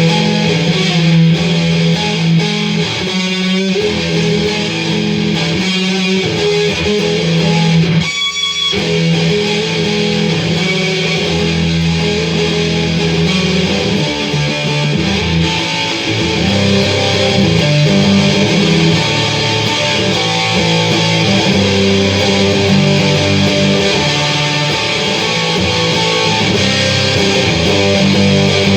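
Electric guitar with DiMarzio and Seymour Duncan humbucker pickups, played through a Marshall Origin 20-watt amp: sustained notes and chords, with a short break in the playing about eight seconds in.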